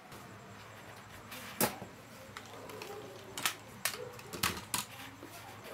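A handful of sharp knocks and clicks, about five, scattered over a few seconds, the loudest about one and a half seconds in, over a faint steady background hiss.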